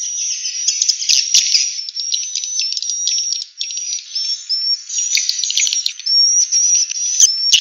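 Swiftlet calls: rapid, high-pitched twittering chirps mixed with thin whistled notes, going on without a break. This is the kind of swiftlet call sound played through tweeters to lure swiftlets into a nesting house.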